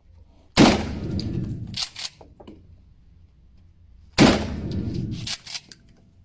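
Two shotgun blasts about three and a half seconds apart, each followed a second later by a quick double click like the pump being racked. These are gunshot sound effects for the toy shotgun.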